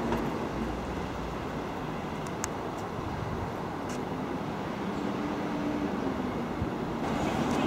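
Class 375 Electrostar electric multiple unit pulling away into the distance: a steady rumble of wheels and motors, with a faint hum about five seconds in and a few light clicks.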